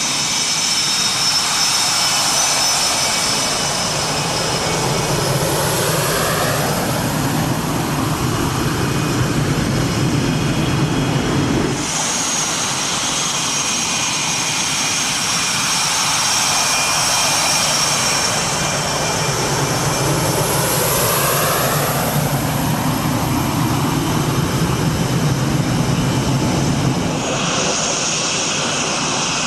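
Swiss Air Force F/A-18 Hornet fighters taxiing past, their twin General Electric F404 turbofans running at taxi power with a high whine over a rumble. The whine sweeps as each jet goes by. The sound changes abruptly about twelve seconds in and again near the end.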